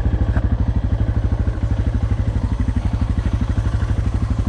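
Suzuki DR650's single-cylinder engine running at low revs, a steady, even thumping of about a dozen beats a second as the bike rolls slowly.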